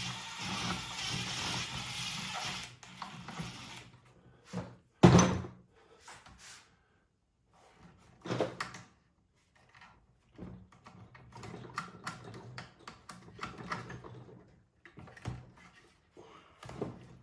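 Tools and metal parts being handled during the teardown of an electric car's onboard charger: a noisy stretch of scraping for the first few seconds, a single loud thunk about five seconds in, then scattered clicks and knocks.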